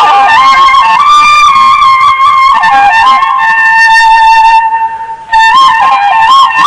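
A Sindhi ringtone tune: a single ornamented melody line with quick turns and a long held note in the middle. It dips briefly in level about five seconds in, then picks up again.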